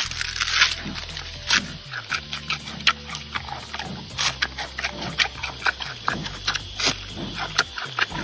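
Giant panda chewing a bamboo shoot up close: irregular crunches, several a second, over quiet background music.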